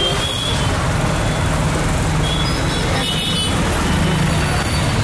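Street ambience of a busy road: steady traffic noise from passing motorbikes, scooters and trucks, with a few brief high-pitched sounds near the start and about two and three seconds in.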